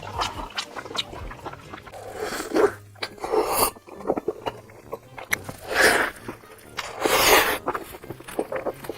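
Close-miked eating sounds: a person chewing big mouthfuls with wet smacks and mouth clicks, broken four times by a louder rushing noise lasting about half a second.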